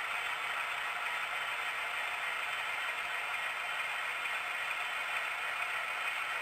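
HO-scale model diesel locomotives and train running along the layout track: a steady mechanical rattle of the models' motors, gears and wheels on the rails.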